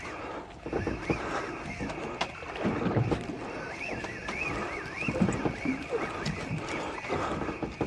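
Small boat rocking on a swell: water slapping the hull with irregular knocks and washes, and a high wavering whine that rises and falls several times in the middle.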